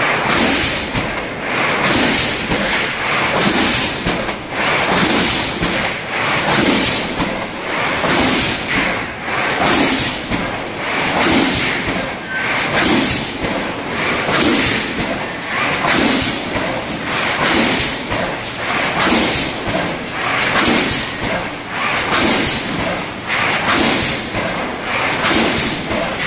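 MengXing MFC9070 PET-tray thermoforming machine running in production, a thump and a hiss repeating about every second and a half. Each repeat is one forming cycle, at 38.7 cycles a minute.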